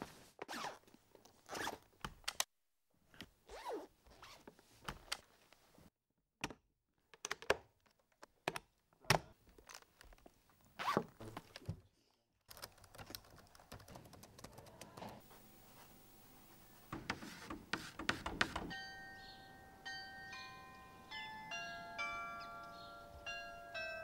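A string of separate knocks and clicks, footsteps among them, broken by short silences. From about 19 seconds in, high bell-like notes ring one after another like a small chime tune.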